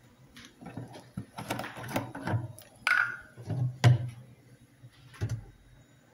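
Irregular knocks, clunks and clatter of kitchen handling, with the sharpest knock about four seconds in and a last one a little after five seconds.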